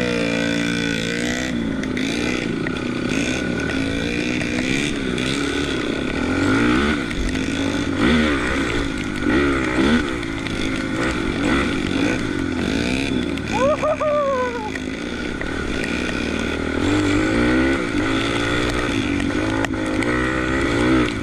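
Off-road motorcycle engines revving up and down over and over as they labour through mud, the pitch climbing and dropping with each burst of throttle.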